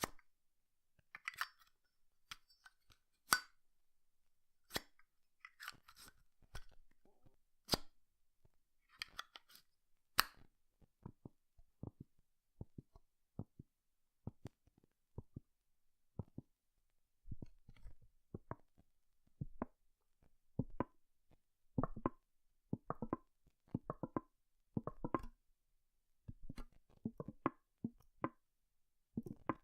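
Zippo lighter handled: sharp metallic clicks of the lid snapping open and shut, with a few short scraping strikes of the flint wheel in the first ten seconds. After that comes a long run of quicker, quieter clicks and taps.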